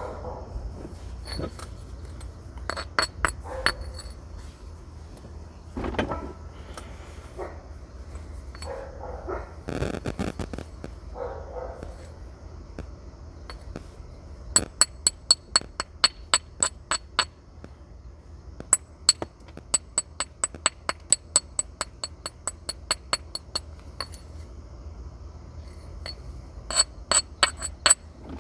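Flint being knapped with a natural tool: sharp, ringing clinks of the tool striking the flint nodule. A few separate heavier blows come first, then runs of rapid light taps at about four to five a second.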